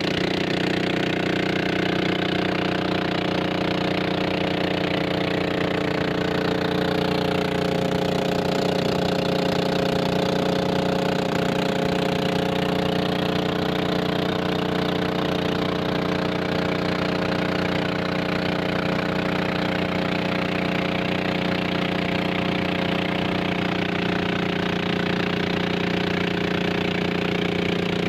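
Small motorboat's engine running steadily at constant speed, with water rushing and splashing along the hull.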